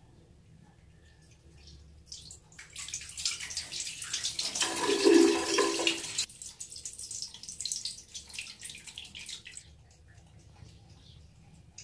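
Tap water running through a hose into a plastic bucket. It starts about two and a half seconds in, is loudest around the middle, and fades out near the end.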